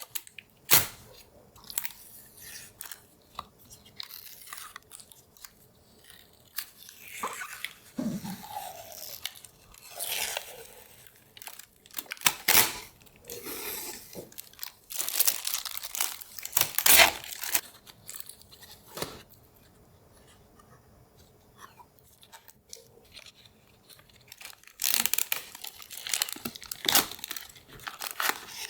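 Close-up handling sounds of PC parts and packaging: a run of scattered clicks, taps and crinkling plastic, with a few louder snaps and a busy stretch of crinkling near the end.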